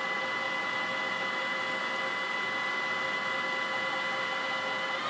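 Fryer ET-18 CNC lathe spindle running steadily at about 1,000 RPM: an even whine of several steady tones over a hiss of machine noise.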